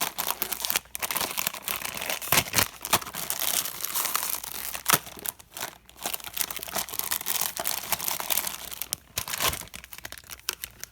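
Blind-bag toy packet being torn open and crinkled by hand: an irregular run of crackling, tearing and crumpling, with a couple of short pauses.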